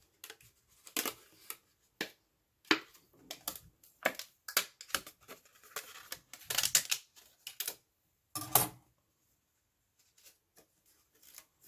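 Die-cut cardstock being handled: irregular rustles, taps and clicks of stiff paper, thinning out to a few faint ticks about nine seconds in.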